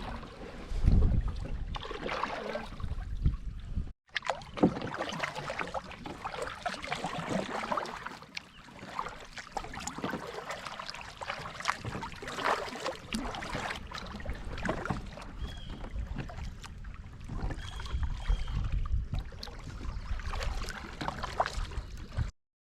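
Kayak paddle strokes dipping and splashing in the water, with low wind rumble on the microphone at times. The sound drops out briefly about four seconds in.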